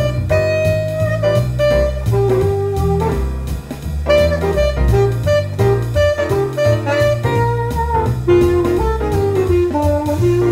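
Tenor saxophone playing a swing jazz line over a backing rhythm section of guitar, bass and drums.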